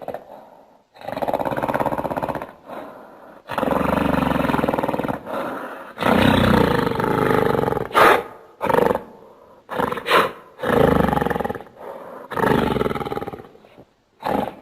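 A string of about a dozen gorilla-like roars and grunts, played one after another with short silences between them. They are creature sound effects for a cartoon mountain gorilla, built from King Kong and Hulk vocalizations. The calls range from short grunts to roars over a second long.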